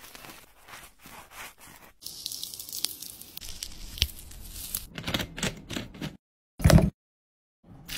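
Quiet food-preparation handling sounds: soft rustling and tearing, a stretch of faint hiss from about two to five seconds in, a few small clicks, and one short louder knock near the end.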